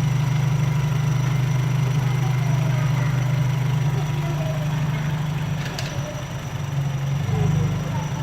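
Opel/Vauxhall Z20LET 2.0 turbo four-cylinder petrol engine, rebuilt with forged internals, idling steadily on its second start-up with no misfire. The idle note sags slightly for about a second, about six seconds in, then picks back up, and there is a short click near the same point.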